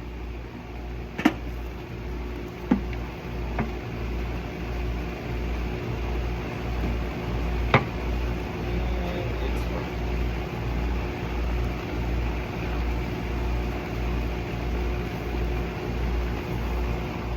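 A machine running steadily with a hum and a slow, even low throb a little faster than once a second. A few sharp knocks sound over it, the loudest about eight seconds in.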